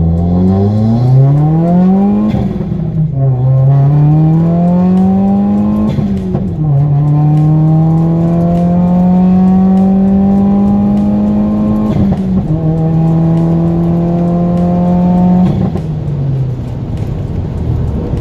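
2018 Subaru WRX's turbocharged flat-four engine pulling hard at full throttle on a Stage 2 setup with a freshly installed downpipe. Its pitch climbs steadily through the revs, dips at gear changes about two, six and twelve seconds in, and falls away near the end as the throttle is lifted.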